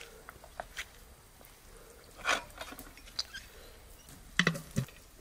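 Light clinks and knocks of metal cooking pots and utensils being handled, with a short scrape about two seconds in and a quick cluster of louder knocks near the end.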